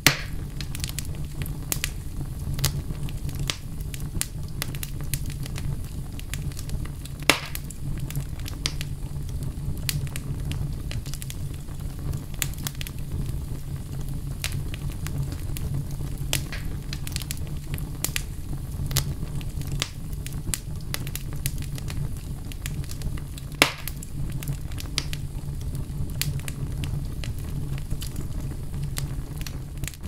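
Wood fire crackling in a fireplace: a steady low rumble of flames under frequent small snaps, with three louder pops, at the very start, about seven seconds in and about twenty-four seconds in.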